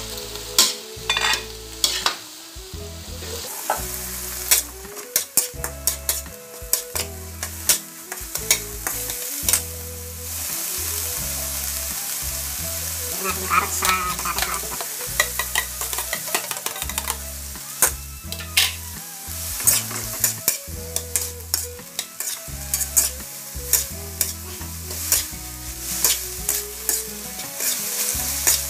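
Ground pork frying in a steel wok with a steady sizzle, a metal spatula scraping and clacking against the pan over and over as it is stirred. About halfway through, diced potato and carrot slide in from a plate and the stirring goes on.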